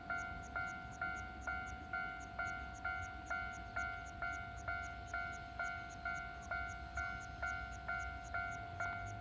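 Japanese railway level-crossing warning bell ringing, an electronic ding repeating about twice a second with each strike fading quickly. A faint low rumble runs underneath.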